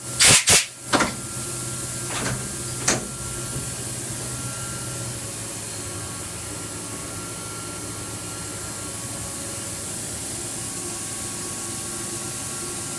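Steady hiss and hum of running machine-shop machinery, with several sharp knocks close together in the first three seconds.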